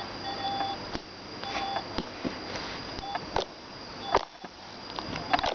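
Short electronic beeps sounding on and off, with a steady high tone behind them and several sharp clicks or pops in between.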